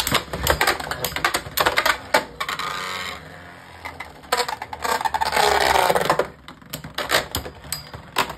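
Two Beyblade X spinning tops battling in a plastic stadium: a quick run of sharp clacks and clinks as they strike each other and the stadium, then stretches of whirring scrape as the spinning tops grind along the floor, with a whir that falls in pitch about five seconds in.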